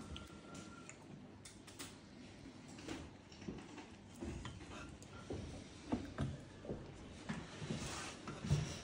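Quiet table sounds: scattered light knocks and clicks of dishes and glassware over a low room murmur, with a soft knock near the end as a glass tumbler is handled.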